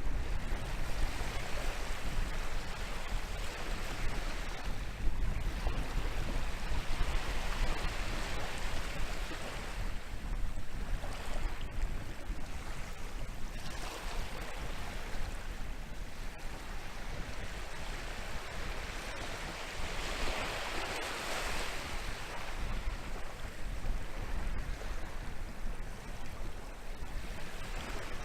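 Atlantic surf breaking and washing onto the shore, swelling and easing every few seconds, with one wash about two-thirds through the loudest. Wind blows over the microphone, adding a low rumble underneath.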